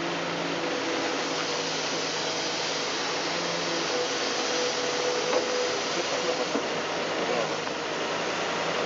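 Diesel engine of a backhoe or its truck running steadily with a low hum.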